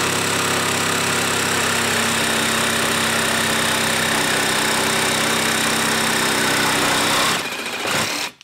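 Older blue Ryobi cordless jigsaw on orbital setting 1, running steadily under load as its blade saws across a wooden board. The sound drops about seven seconds in as the cut finishes, and the saw stops near the end.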